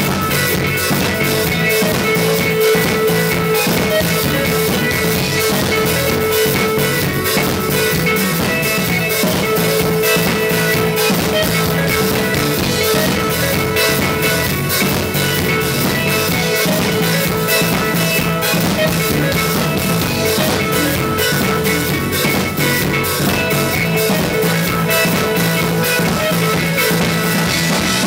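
Live rock trio playing loud: electric guitar, electric bass and drum kit. Dense, steady drumming runs under held guitar and bass notes.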